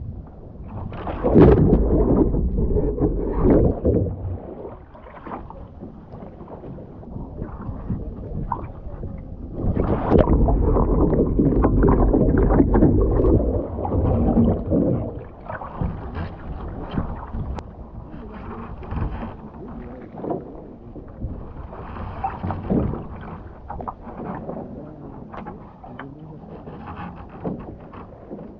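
Water splashing and churning against a skin-on-frame kayak as the paddler leans it far over onto its side. There are two heavy bouts of splashing about a second in and about ten seconds in, and lighter sloshing and lapping water through the rest.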